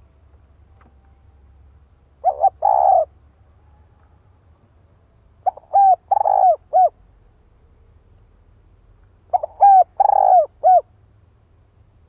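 Spotted dove giving its cooing call song, the call a decoy dove uses to draw others: three phrases of a few coos each, the longest coo in the middle, a few seconds apart.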